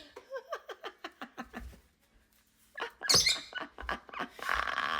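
Lovebird chattering in quick squeaky chirps, then a loud harsh squawk about three seconds in, followed by rapid scratchy chatter.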